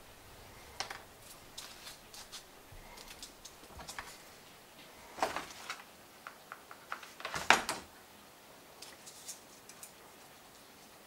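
Irregular light clicks and taps of small foam pieces, a hot glue gun and a 3D-printed part being handled on a workbench, with louder knocks about five and seven and a half seconds in, the second one the loudest.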